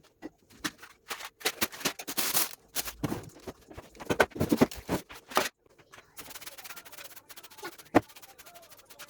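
Trigger spray bottle squirting water, a quick run of short hissing spray bursts with trigger clicks, and a sharper knock about eight seconds in.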